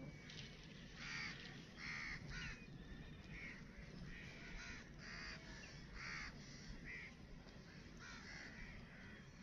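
Crows cawing in short, repeated calls, about one a second, faint over a low steady rumble.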